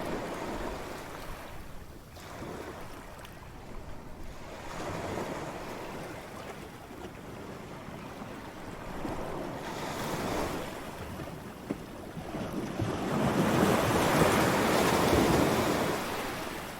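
Ocean waves washing onto a shore, the surf noise swelling and ebbing in surges, with the loudest wave breaking and rushing in during the last few seconds.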